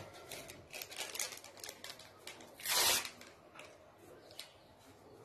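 Hands mixing and rubbing flour into a sticky almond dough in a glazed clay bowl: a run of soft scratching and rubbing sounds, with one louder rustling scrape about three seconds in.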